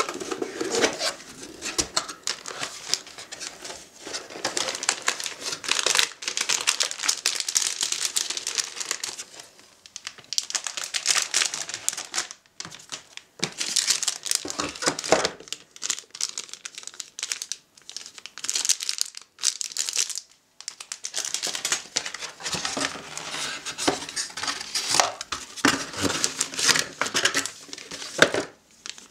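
Plastic packaging crinkling as a motherboard is unboxed: the anti-static bag and cables in a clear plastic bag handled, along with cardboard box parts. It comes in irregular bursts with a few short pauses.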